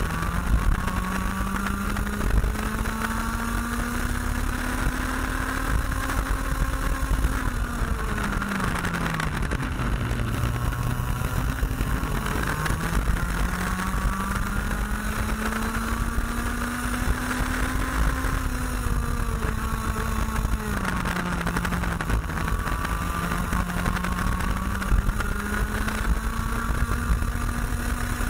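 IAME X30 125cc two-stroke kart engine heard onboard at racing speed. Its pitch climbs steadily on the throttle, drops sharply twice as the revs fall off for corners, then climbs again.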